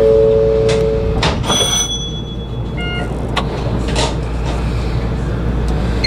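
Warning tones in the cab of a Shonan Monorail 5000 series train standing at a station: a steady two-note tone that stops about a second in, then a short higher chime and a brief beep, with a few clunks, over the train's steady low hum.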